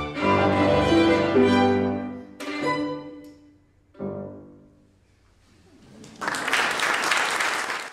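Violin and piano playing the final bars of a piece, closing on two sharp chords about two and a half and four seconds in that ring away. About six seconds in, audience applause begins.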